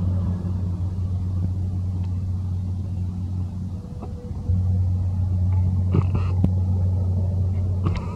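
Low, steady motor rumble that dips for about a second near the middle, with a few short sharp sounds in the last two seconds.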